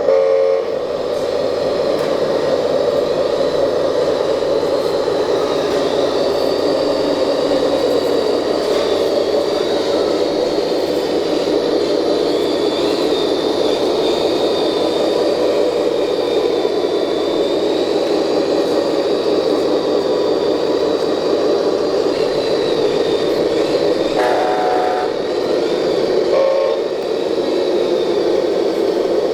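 Radio-controlled model construction vehicles running: a steady mechanical drone with a thin high whine over it. A short horn-like toot sounds about twenty-four seconds in, and a brief second tone follows a couple of seconds later.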